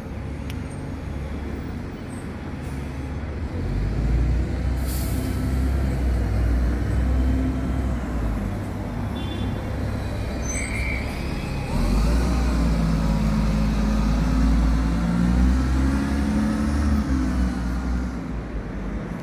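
Diesel bus engines running in the street, a heavy low rumble that grows louder about a dozen seconds in as a bus pulls away, its engine note rising. A short hiss of air, typical of a bus's air brakes, about five seconds in.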